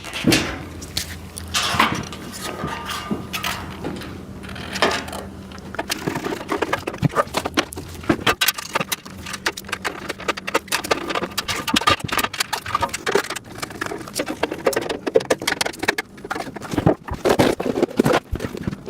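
Plastic parts of a bin organizer rack clicking, knocking and rattling as they are handled and fitted together, with quick irregular clatter from about six seconds in.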